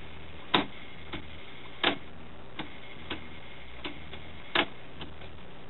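Cassette deck transport buttons and mechanism clicking as they are pressed: three loud sharp clicks and several lighter ones at irregular intervals, over a steady faint hiss.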